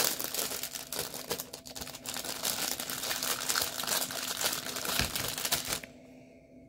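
Clear plastic packaging bag crinkling as it is handled, with a dense crackle that stops abruptly near the end.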